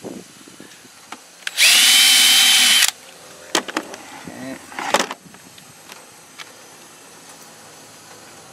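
Cordless drill running at speed for about a second, boring a hole in the plastic engine air box lid for a hose barb. A few sharp clicks follow.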